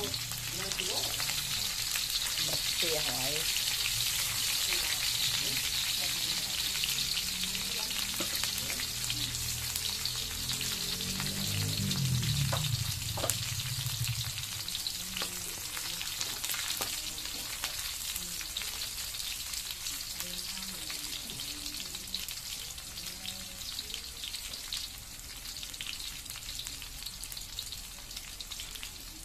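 Sliced garlic, chillies and lemongrass sizzling in hot oil in a steel wok, with a few clicks and scrapes of a metal ladle stirring them near the middle. The sizzle slowly dies down toward the end.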